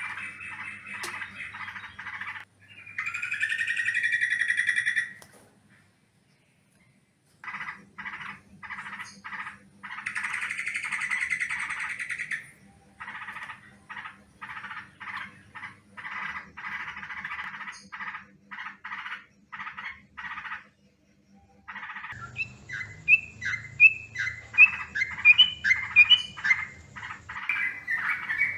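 Yellow-vented bulbul (trucukan) calling in short, bubbly chattering phrases. There is a pause of about two seconds early on, then a long run of separate short notes, and a quicker series of rising notes near the end over a faint low hum.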